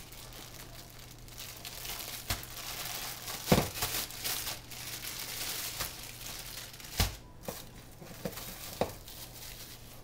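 Clear plastic bag of rice crinkling and rustling as it is handled. A few dull knocks break in, the loudest about three and a half seconds in and another about seven seconds in.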